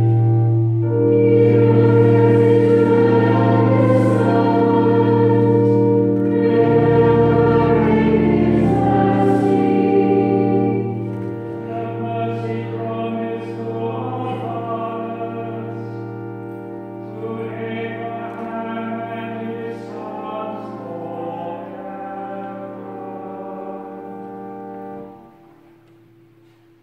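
Choral church music in slow, long-held chords. It grows quieter about halfway through and stops abruptly near the end.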